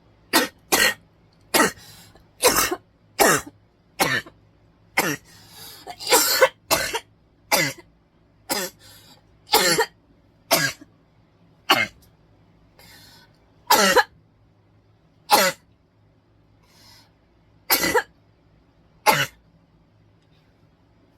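A person coughing in a long fit of about eighteen short, hard coughs, roughly one a second at first and spacing out later, with a noisy breath between coughs a quarter of the way through.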